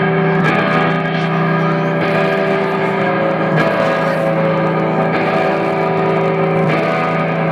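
A live band playing a loud, sustained amplified drone of held, unchanging tones, with a handful of scattered drum or cymbal strikes rising out of it.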